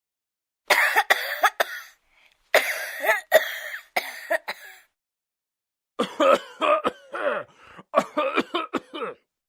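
Human coughing in three separate fits, each a quick run of several coughs, with short silent gaps between them.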